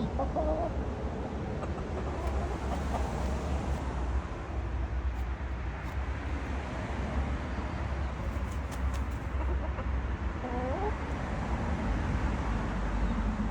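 Backyard chickens giving a few short clucks, near the start and again about ten seconds in, over a steady low rumble.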